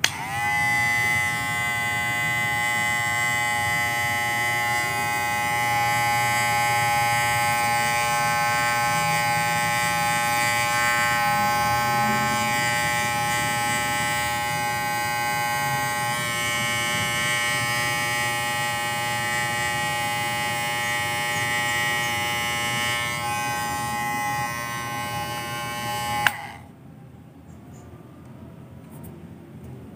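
Cordless WMARK NG-122 hair clipper switched on with a click, its motor spinning up briefly and then running with a steady buzzing whine. It is switched off with a click after about 26 seconds.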